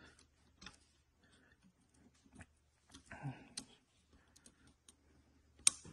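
Faint, scattered small metal clicks and taps as synchronizer keys, springs and detent balls are worked into an NV5600 transmission's synchronizer hub with a pick, with one sharper click near the end.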